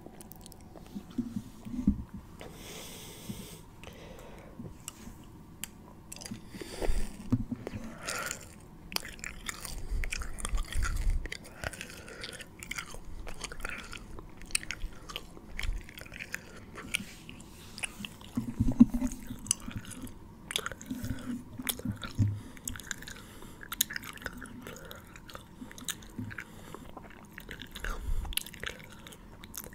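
ASMR mouth sounds: irregular clicks of lips and tongue, with a few louder, lower bursts scattered through.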